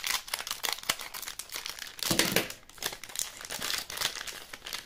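Plastic wrapper of a gummy-candy pack crinkling in the hands as it is torn open, with a louder burst of crinkling about two seconds in.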